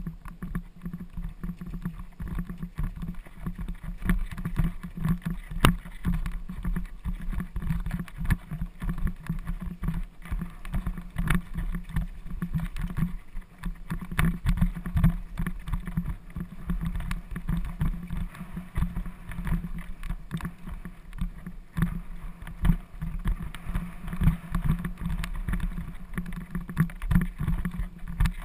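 Mountain bike clattering and rattling over a rough, rocky stone-slab trail, with dense irregular knocks over a constant low rumble, heard through a helmet-mounted GoPro Hero 2.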